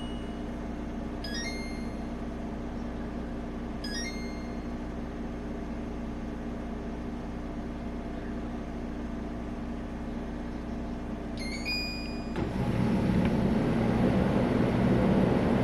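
Portable clothes dryer's control panel chiming short runs of stepped electronic beeps as its buttons are pressed, over a steady hum. About twelve seconds in, the dryer starts up with a louder, steady whir of its drum motor and fan.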